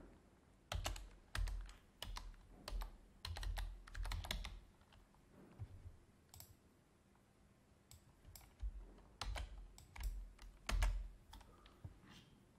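Typing on a computer keyboard: a quick run of keystrokes in the first few seconds, a pause, then a second run of keystrokes.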